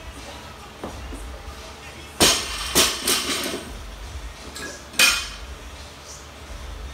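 Loaded barbell with bumper plates hitting the rubber gym floor, a loud clank about two seconds in followed by two smaller rebounds, then another sharp clank about five seconds in.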